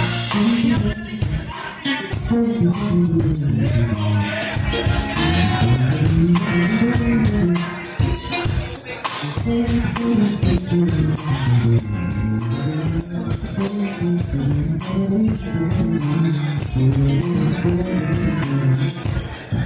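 Live band playing a song: electric guitars, keyboard, drum kit and congas, with a low melodic line that keeps rising and falling and a steady rhythm of drum and percussion strokes.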